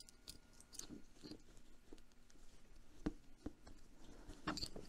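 Faint handling of leather pack straps and their metal buckles: soft rustling with small scattered clicks, two sharper clicks about three seconds in.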